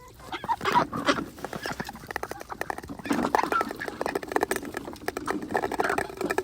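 Farm birds calling over a fast, steady patter of small clicks.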